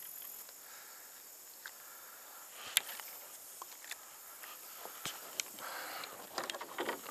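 Quiet outdoor ambience broken by a few sharp clicks and knocks, the sharpest about three seconds in, with a cluster of rustling handling sounds near the end.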